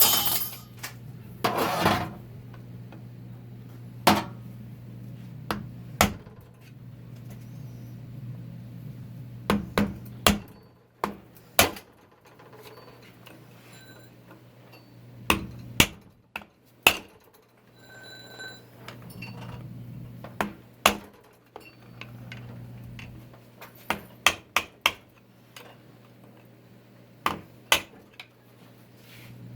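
Metal tools and transmission parts knocking and clinking at irregular intervals over a steady low hum, with two short noisy bursts near the start.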